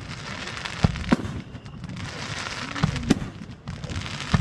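Fireworks bursting: about five sharp bangs, two pairs of them in quick succession, each with a short rumbling tail.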